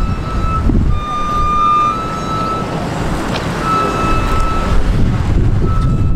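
A ground service vehicle's engine running with a steady low rumble, with held beeping tones coming and going at uneven intervals. Wind buffets the microphone.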